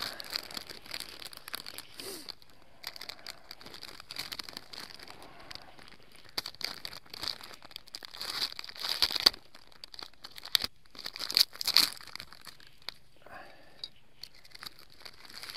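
Wrapper of a packet of crispbread being slit with a knife and torn open, a run of crinkling and crackling that is loudest a little past the middle.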